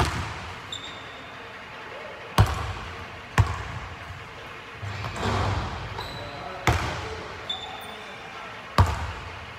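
Basketball bouncing on a hardwood gym floor: about five sharp, echoing bounces spread through the clip, with one fainter bounce between the last two.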